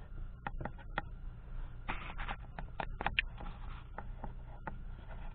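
Irregular light clicks, taps and short scrapes of things being handled on a workbench, over a low steady hum.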